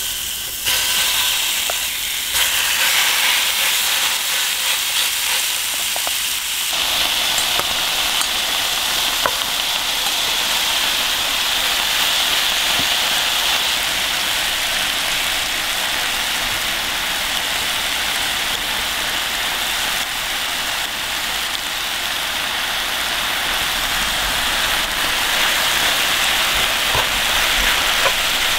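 Food sizzling steadily in a hot pan, with a fuller sound from about seven seconds in.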